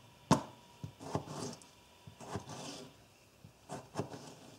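Spyderco Native 5 folding knife slicing a firm tomato on a cutting board. A sharp tap of the blade on the board comes about a third of a second in, then several softer slicing strokes and taps.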